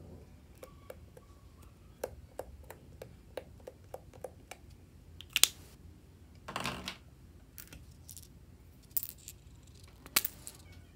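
Light, sharp plastic clicks and taps from paint markers being handled and tapped over a plastic tray of slime: a run of about three clicks a second for a couple of seconds, then scattered louder clicks and one brief rustle past the middle.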